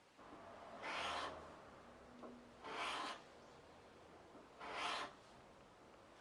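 Three slow scraping strokes of a Japanese hand plane (kanna), about two seconds apart, each lasting about half a second.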